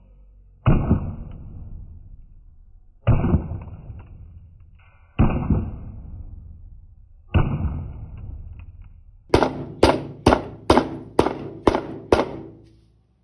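Hammer blows on an ice cube on a wooden board: four heavy strikes about two seconds apart, each ringing on as it dies away, then a quick run of seven sharp strikes at about two a second near the end.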